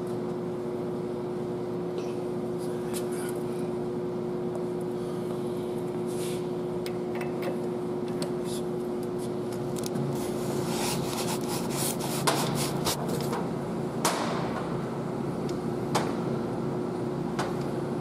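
Steady machine hum of a workshop, with scattered sharp metallic clicks and clinks of hand tools in the second half and a louder knock near the end.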